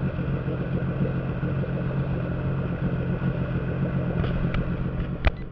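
Sea-Doo RXT-X personal watercraft's supercharged three-cylinder four-stroke engine idling steadily through an aftermarket Riva water box and Rude exhaust tip. A few light clicks and one sharp click come near the end, then the sound cuts off suddenly.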